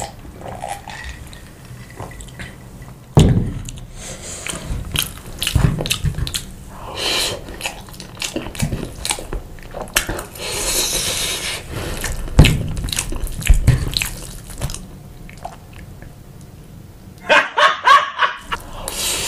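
A person eating chicken and pasta with sauce, close to the microphone: wet chewing and mouth noises coming in irregular bursts with sharp clicks.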